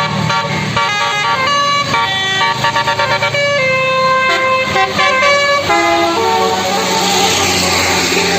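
Bus 'telolet' Basuri multi-trumpet air horn playing a quick tune of changing notes, with a fast run of short notes about three seconds in, over the low running of the bus engine. A hiss builds near the end.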